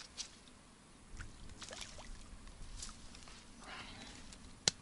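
Faint water sloshing at the lake edge, with scattered light scrapes and knocks and one sharp click near the end.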